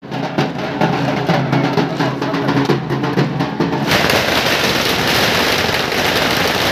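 Dhak drums (large two-headed barrel drums) beaten in a steady rhythm, cut off suddenly about four seconds in by a dense crackle of firecrackers going off.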